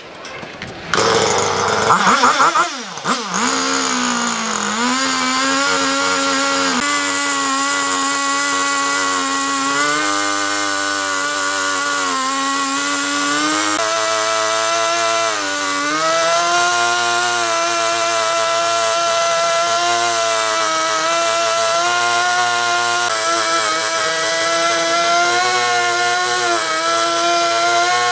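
Gas chainsaw revving up about a second in, then running steadily as it cuts crosswise through a log, its engine pitch dipping slightly now and then as the chain bites.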